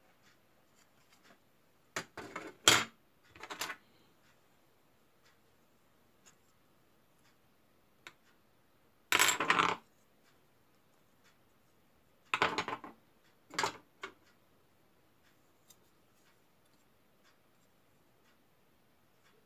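Hard plastic parts of a snap-together model airliner and its display stand being handled, in about five short bursts of clattering and rubbing. The longest burst comes about nine seconds in.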